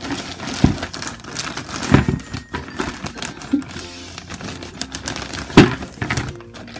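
Clear plastic packaging bag crinkling and rustling as foam-tube water blasters are handled and pulled out of it, with a few sharp bumps; the loudest comes about five and a half seconds in. Soft background music plays underneath.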